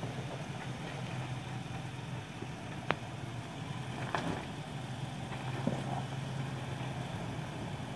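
Toyota Tacoma's engine running steadily at low revs as the lifted truck crawls slowly over a rock. A sharp click sounds about three seconds in, with two lighter knocks later.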